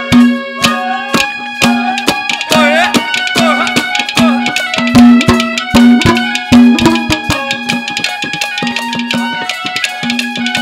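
Live Haryanvi ragni folk music: a hand drum beating a quick, dense rhythm under held melody notes, with a wavering melody line about two to four seconds in.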